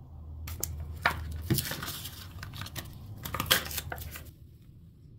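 Cardboard-and-plastic blister pack being torn open by hand: the backing tearing and the plastic shell crinkling, with a few sharp cracks, stopping about four seconds in.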